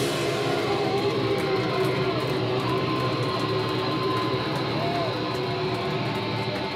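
Amplified electric guitar left ringing after the band's final crash: a steady wash of held tones through the amps, with a note sliding slowly up in pitch, and no drums.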